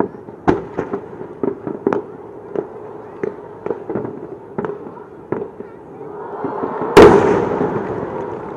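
Aerial fireworks: a string of sharp pops from smaller shell bursts, then about seven seconds in a single loud boom of a large shell bursting, with a long echo trailing off.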